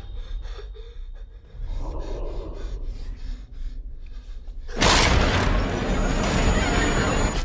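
Horror film trailer soundtrack: a tense, quieter stretch of scattered faint clicks and breathy sounds, then a sudden loud burst of noise about five seconds in that keeps going.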